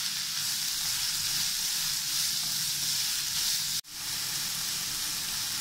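Chopped onions sizzling steadily as they sauté in hot oil in a nonstick pan while being stirred. The sound cuts out for a moment just under four seconds in, then carries on as before.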